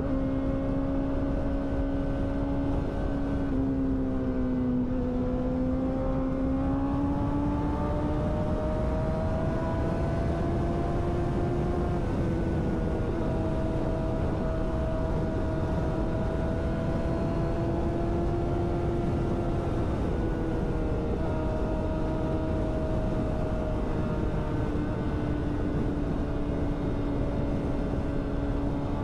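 Yamaha sport motorcycle engine at a steady highway cruise. Its note dips slightly about five seconds in, then rises a little and holds, with small throttle changes. A steady rush of wind and road noise runs underneath.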